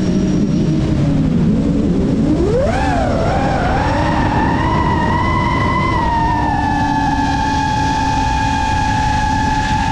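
FPV quadcopter motors and propellers whining, their pitch following the throttle. The whine sits low through a dive, sweeps sharply up with a few wobbles about three seconds in as power comes back, then holds a high, steady pitch. A rushing noise runs underneath.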